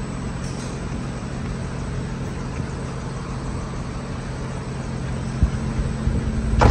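Steady low machinery hum in a shop, with a dull knock and then a louder sharp knock near the end as a hand handles the car's door glass.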